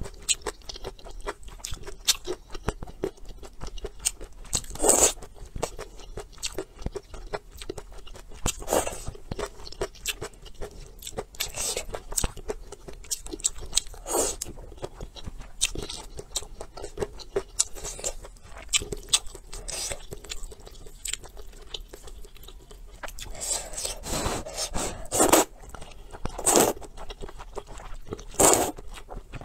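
Close-miked eating of rice noodles in soup: constant wet chewing and mouth clicks, with a loud slurp of noodles every few seconds and several slurps close together near the end.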